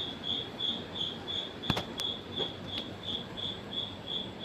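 A cricket chirping steadily, about four short high chirps a second. Two sharp clicks sound close together a little before the middle.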